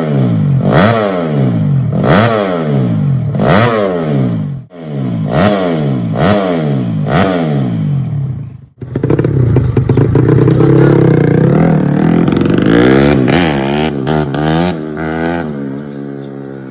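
Modified underbone racing motorcycle's engine blipped on the throttle, rising and falling about once a second. After a cut about nine seconds in, the engine is held at high revs with the pitch wavering, then the revs fall away and fade near the end.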